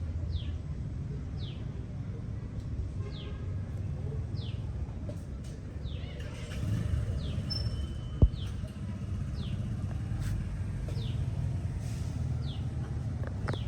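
A bird calls over and over, a short, high, falling chirp about once a second, against a steady low rumble. A single sharp click stands out about eight seconds in.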